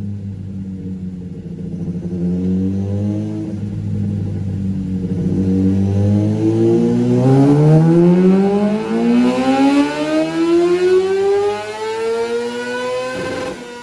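2023 Kawasaki ZX-6R race bike's inline-four engine making a dyno pull under full throttle: the revs build slowly, then climb steadily through a long rising wail before the throttle shuts abruptly near the end.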